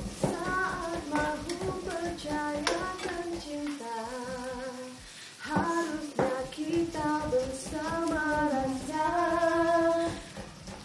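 A woman singing a slow melody on her own, holding long notes, with a few sharp knocks of a knife on a chopping board.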